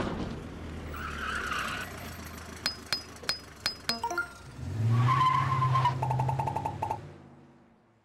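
Sound effects for an animated ambulance pulling up in the rain: a steady hiss, a run of about six sharp clicks, then a vehicle arriving with a low engine drone and a tyre skid, and a quick run of short beeps before it all fades out.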